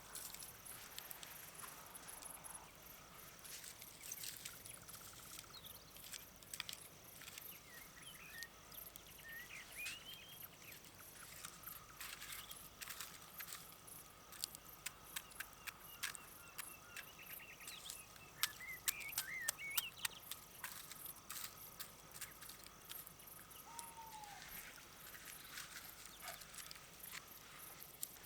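Faint outdoor nature sound: scattered short bird chirps and calls over a steady high insect trill, with many sharp crackling clicks throughout.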